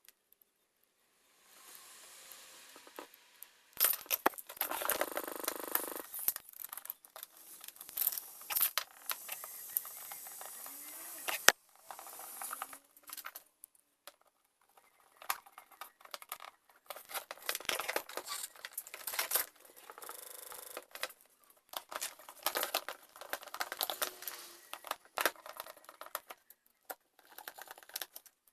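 Handling noises from a drill being taken apart and worked on: irregular clicks, knocks and rustling of small parts and plastic, with short pauses between.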